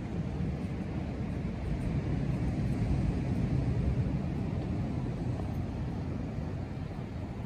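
Wind buffeting the microphone: a steady low rumble, a little louder in the middle.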